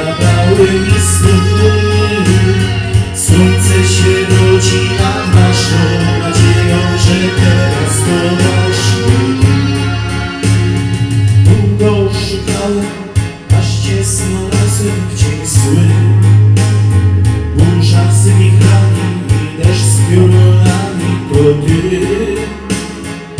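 Electronic keyboard playing a full backing arrangement: a steady drum-machine beat, a bass line and a melody.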